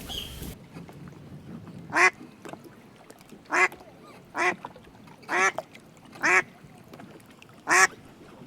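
Duck quacking: six short, loud quacks spaced about a second apart.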